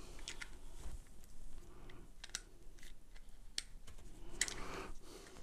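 Small clicks and scrapes of a screw-on battery cap being threaded onto the base of a vape mod, with the battery just put in.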